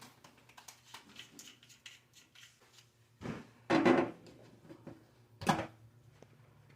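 Faucet parts being handled: light scattered clicks and rattles, with a louder knock about three to four seconds in and a sharp knock about five and a half seconds in.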